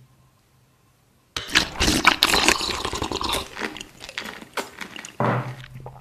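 Loud, wet slurping of a thick M&M candy soup, with many sharp wet clicks, starting about a second and a half in and easing off toward the end.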